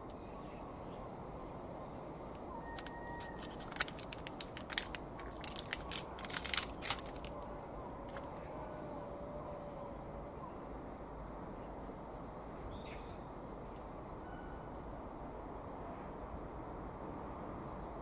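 Outdoor background noise with faint, scattered bird chirps. A run of sharp clicks and ticks comes a few seconds in and lasts about three seconds.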